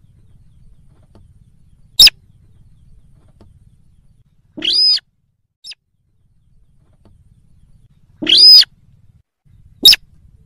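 Slaty-breasted rail (sintar) calls played as a bird-trapping lure: a short, sharp call about two seconds in and another near the end, with two longer, harsher calls in between, around five and eight and a half seconds.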